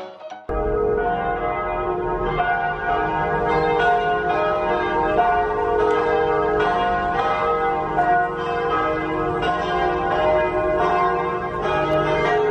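Several church bells ringing together, struck over and over in a continuous peal that starts about half a second in, with a low rumble underneath.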